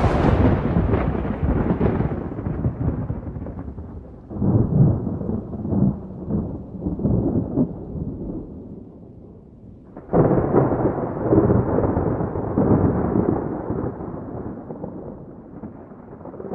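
Low rumbling noise in three surges, each starting suddenly (at the start, about 4 s in, and about 10 s in) and fading away over a few seconds.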